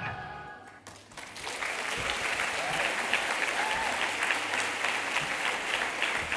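Music fades out, then an audience applauds, the clapping starting about a second in and holding steady.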